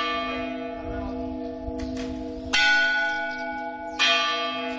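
A church bell tolling: it is struck twice, about two and a half seconds in and again about four seconds in, and each strike rings on and slowly fades over the still-sounding ring of the one before.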